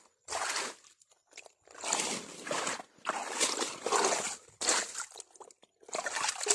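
Water sloshing, splashing and dripping in irregular bursts as a wild eel trap is hauled up out of the water.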